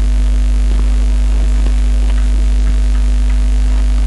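Steady low electrical hum, with a few faint taps.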